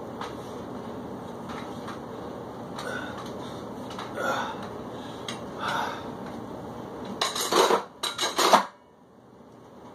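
Iron weight plates on adjustable dumbbells clinking lightly a few times during rows. Near the end comes a loud clatter of several metal clanks as the dumbbells are put down, which then stops suddenly.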